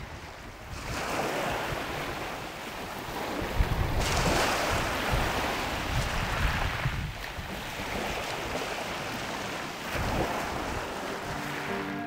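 Rushing noise of waves, swelling and ebbing about every three seconds.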